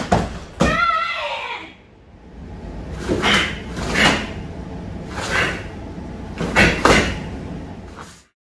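A body hitting padded foam mats as a karate partner is thrown down, with a sharp thud, followed at once by a short kiai shout. Then about five quick, sharp swishes and snaps of a karate gi as kata strikes and blocks are thrown. The sound cuts off near the end.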